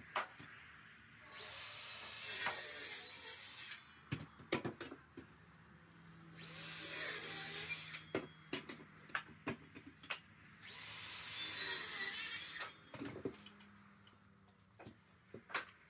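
Power saw cutting pink pine framing timber into short blocks: three cuts of about two seconds each, with sharp wooden knocks and clatter between and after them.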